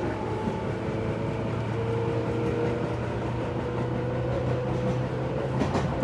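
Electric commuter train running, heard from inside the passenger car: a steady low hum with a motor whine over the noise of the wheels on the track.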